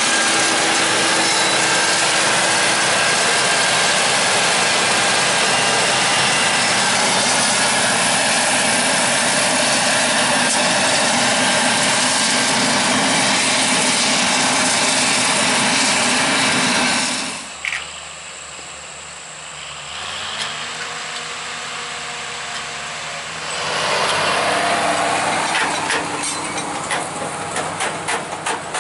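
Claas Jaguar 970 forage harvester running close by as it chops corn silage: a loud, steady rush of engine, cutting head and blown crop. About two-thirds of the way in it drops suddenly to a quieter, more distant engine sound, which swells again near the end with a run of quick clicks.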